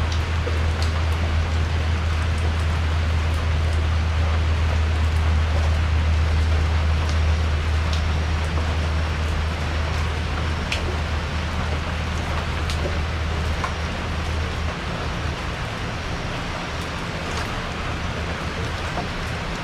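Steady rain on a porch: an even hiss with scattered sharp drips, over a low rumble that fades out about three-quarters of the way through.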